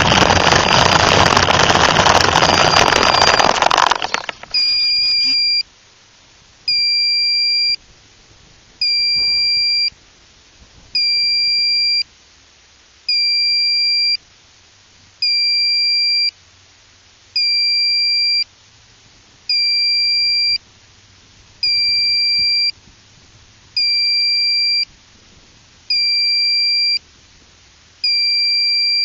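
Loud rushing wind and motor noise from the low-flying model plane, cutting off about four seconds in as it comes to rest. Then an electronic beeper sounds a steady, high two-tone beep of about a second, repeating roughly every two seconds.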